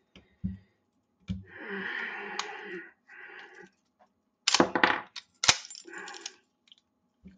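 Barrel bushing of a tight-fitting Colt 1911 slide being knocked into place with a plastic mallet. Several sharp knocks and metal clicks, the hardest about five and a half seconds in, with short scraping of metal parts between them.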